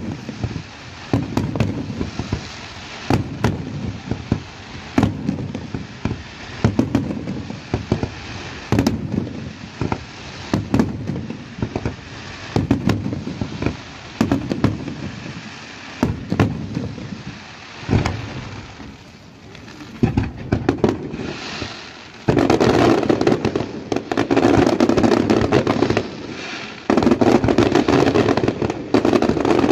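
Aerial fireworks display: shells bursting with sharp bangs about once a second, then from about three-quarters of the way in a dense, rapid barrage of reports and crackle.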